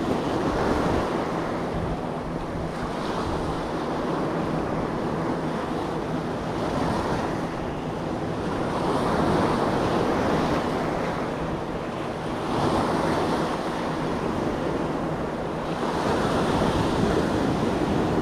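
Sea waves surging and breaking on rocks, swelling louder every few seconds, with wind buffeting the microphone.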